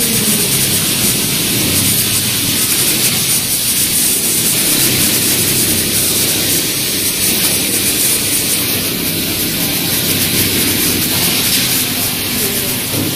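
Steady, loud hiss of a sewing-factory floor with machinery running, unchanging throughout, with no distinct strokes or tones.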